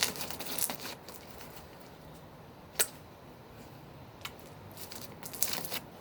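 Homemade slime being handled, giving soft crackles and small pops, busiest in the first second and again near the end, with one sharp click about three seconds in.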